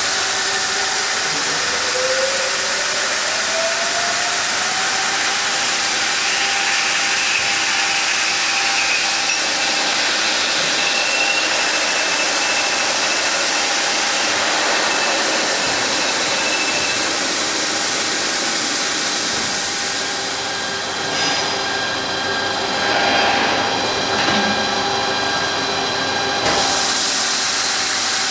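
AMG three-axis H-beam drilling machine running: a loud, steady hiss with a motor whine that rises in pitch over the first few seconds and then holds steady.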